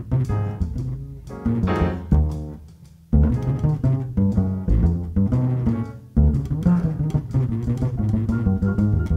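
Upright double bass played pizzicato in a jazz setting: a line of plucked notes that dies away briefly about three seconds in, then picks up again.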